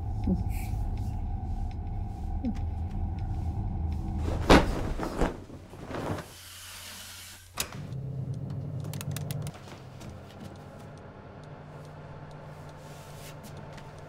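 A low rumbling drone, cut by a sharp thud about four seconds in and a smaller knock just after. Then a brief hiss, a click as an oven control knob is turned, and a steady low hum that drops a little soon after.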